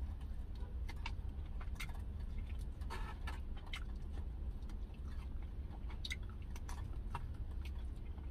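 A person chewing and biting into a smoked chicken wing close to the microphone, with short sharp mouth clicks scattered irregularly through it, over a steady low hum.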